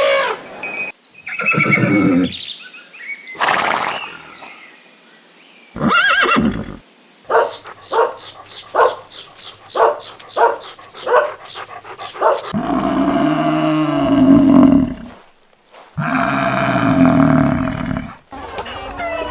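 Horse neighing and whinnying in a series of separate calls, with a run of short, evenly spaced calls in the middle and two long neighs near the end.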